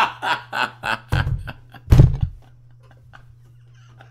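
A man laughing in short, evenly spaced bursts through about the first second, then two heavier, deeper bursts of breath. After that it goes quiet apart from a faint steady hum.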